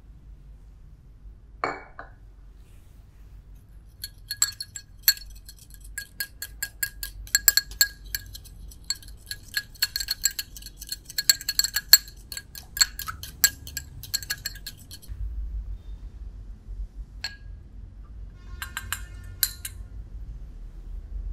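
Spoon stirring in a small glass bowl: rapid, irregular clinks of the spoon against the glass, each with a short ringing tone, for about eleven seconds. A dull knock about two seconds in, and a few more clinks near the end.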